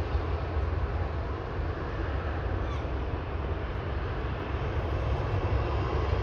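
Airliner engines rumbling steadily, a deep, even roar with no breaks.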